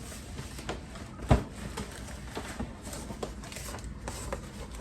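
Light knocks and clicks of items being handled, with one louder thump about a second in.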